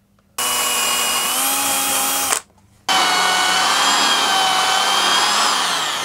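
Corded electric drill boring holes in a board: two runs of steady motor whine with a short break between, the second slowing down with falling pitch near the end.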